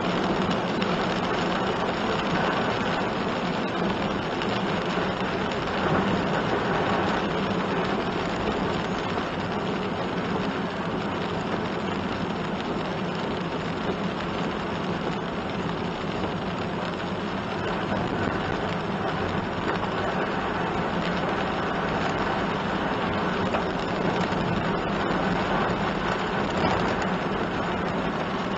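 Steady road noise heard inside a kei van's cabin while driving in rain: tyres hissing on wet asphalt over a low engine drone, with rain on the car.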